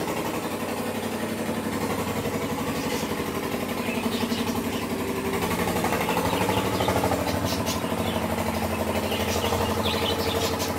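A steady mechanical hum, like a small engine or motor running evenly without change.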